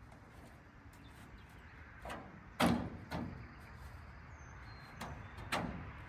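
Five knocks and clanks of loosely fitted car body parts being shifted into place, three close together with the loudest about two and a half seconds in, then two more about two seconds later.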